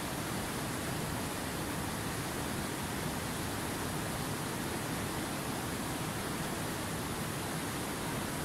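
Fast mountain river rushing over boulders: a steady, unbroken sound of running water.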